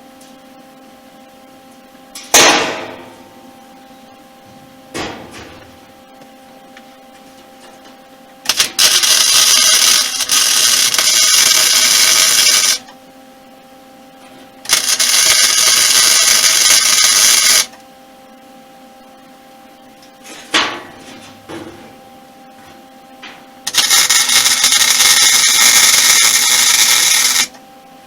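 Three runs of welding on 16-gauge sheet metal, each a steady, loud noise lasting three to four seconds that starts and stops abruptly. Between them come a few single sharp knocks that ring out briefly, over a low steady hum.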